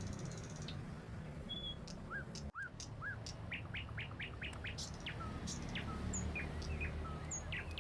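Several small birds chirping and calling in short, quick notes, over a low, steady background rumble.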